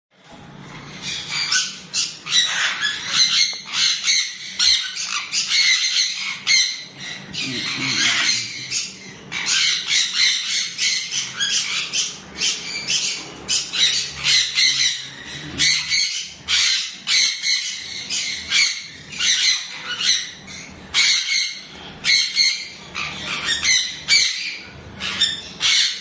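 Severe macaw (chestnut-fronted macaw) squawking: a long run of short, harsh calls, several a second with brief pauses between bouts.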